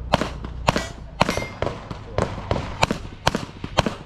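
Handgun shots fired in quick succession, about nine sharp cracks in four seconds at an uneven pace, as in practical pistol shooting.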